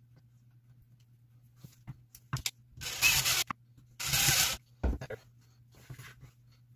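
Two short rasping scrapes, each about half a second, about a second apart, with a few sharp clicks and knocks around them: plastic and metal parts being handled and fitted during assembly.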